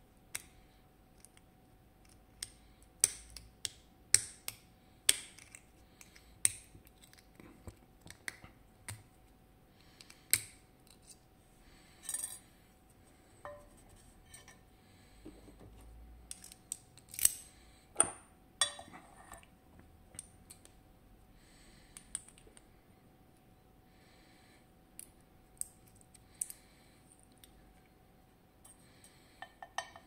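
Irregular sharp metallic clicks and clinks as a FAB 2000 lock cylinder and steel picking tools are handled and set down while the lock is being taken apart. There are a few louder knocks among them, bunched around a few seconds in and again past the middle.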